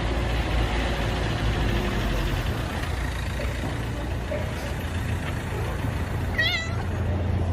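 A steady low rumble with an even hiss over it, and one short, high, wavering squeak about six and a half seconds in.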